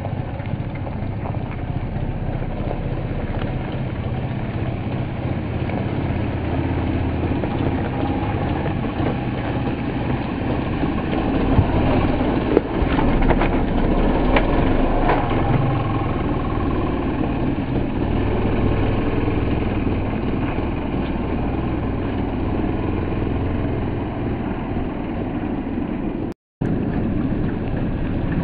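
Small dirt bike engine running steadily as the bike is ridden around, with two sharp knocks about twelve seconds in. The sound cuts out briefly near the end.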